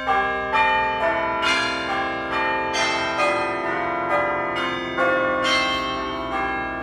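An iPhone ringtone playing: a melody of struck, ringing notes that overlap as each one rings on, a new note about every half second.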